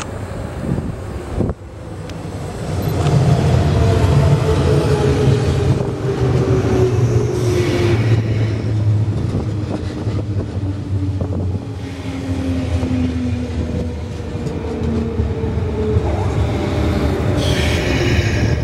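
Orange JR West Osaka Loop Line electric commuter train running past: a deep rumble with a motor whine that falls slowly in pitch, then a brief higher-pitched rattle near the end.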